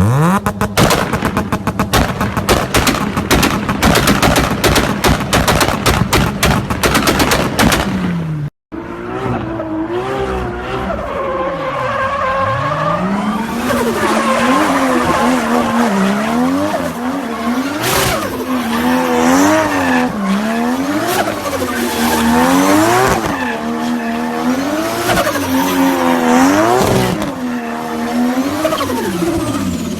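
Tuned turbocharged car engine and exhaust. For the first eight seconds or so it gives a rapid string of exhaust pops and bangs. After a sudden cut, a car engine is revved over and over, its pitch climbing and falling with each blip of the throttle.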